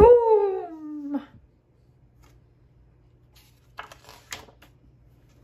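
A voice calls out "Badaboum!", the last part drawn out and falling in pitch for about a second. Around four seconds in, a picture-book page is turned with a short papery rustle.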